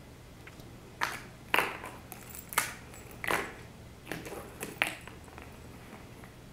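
Hollow plastic Easter egg knocked about on a hardwood floor and against the baseboard by a kitten: about six short, sharp clacks and taps, spread over a few seconds.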